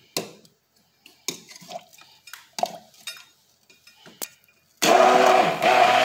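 A few light knocks, then about five seconds in a stick blender's motor starts abruptly and runs steadily, loud, blending chunks of onion and garlic in water in a plastic beaker.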